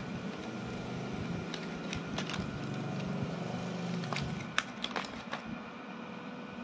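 A steady low mechanical hum that swells for a few seconds in the middle, with a handful of sharp clicks about two seconds in and again four to five seconds in.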